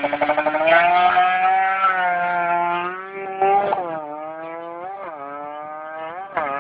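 Sport motorcycle launching and accelerating away hard, its engine climbing in pitch and dropping back at each of three quick upshifts. It fades as it pulls away into the distance.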